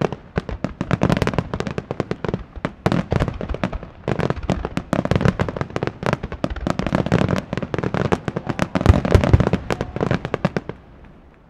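Aerial fireworks going off in a dense, rapid barrage: overlapping shell bursts with crackling and popping, many bangs a second, dying away near the end.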